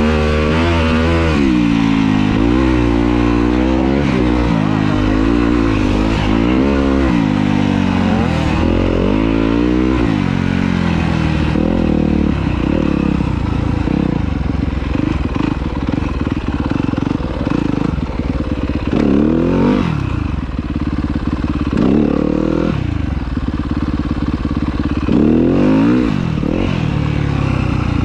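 Yamaha YZ250F's 250 cc four-stroke single-cylinder engine under the rider. For the first ten seconds or so it revs up and down repeatedly while riding a sandy trail, then settles into low, steady running at slow speed, with a few brief throttle blips in the second half.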